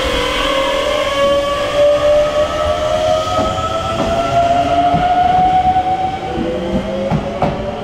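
Electric commuter train pulling away, its traction motors and inverter whining in several tones that rise slowly in pitch as it gathers speed, with wheels clacking over rail joints.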